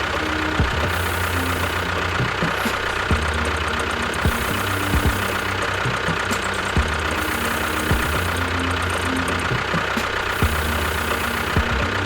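An engine running steadily with a knocking throb, its pattern repeating every few seconds like a looped engine sound.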